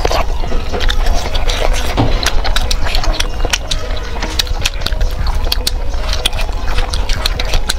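Close-miked chewing of black bean noodles and sausage: many irregular wet mouth clicks and smacks over a steady low rumble.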